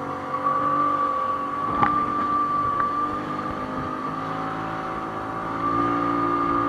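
Outboard motor of a small fiberglass fishing boat running steadily at speed, a constant engine drone with spray off the hull. A single sharp knock comes about two seconds in, and the engine grows slightly louder near the end.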